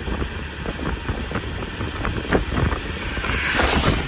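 Rain and small hail knocking irregularly on a car's body and windshield, over a steady low rumble of road and wind. A hiss swells about three seconds in and fades.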